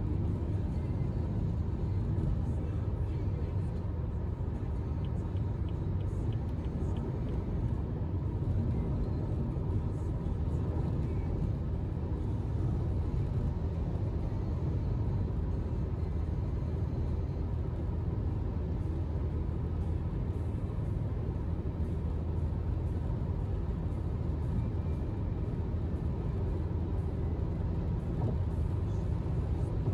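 Steady low road rumble and wind noise inside a BMW's cabin cruising at about 155 to 160 km/h on a wet autobahn. A brief run of faint ticks comes about five seconds in.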